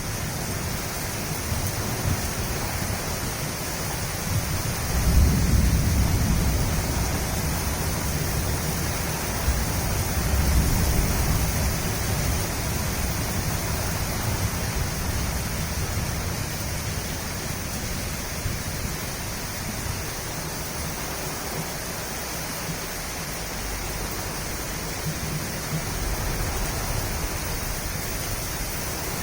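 Distant thunder rumbling low under a steady rushing hiss of wind and rain. The rumbles swell about five seconds in and again around ten seconds in.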